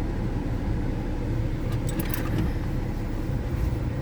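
Steady low rumble of a car driving, heard from inside the cabin, with a few faint clicks about two seconds in.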